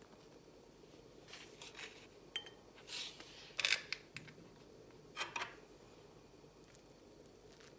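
Kitchenware being handled: about five light clinks and clatters, one with a brief ringing ping.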